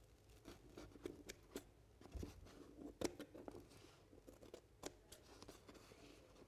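Faint, irregular snips of scissors cutting into pasted wallpaper.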